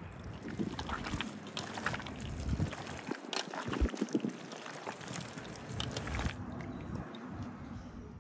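Gloved hands squeezing and turning beef tongue pieces in a wet marinade in a stainless steel bowl: irregular wet squelching and sloshing with small clicks, dying down about six seconds in.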